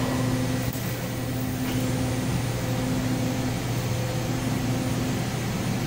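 Steady machine hum with a fan-like hiss from shop equipment, a low electrical hum under it and a fainter tone that cuts in and out every second or so.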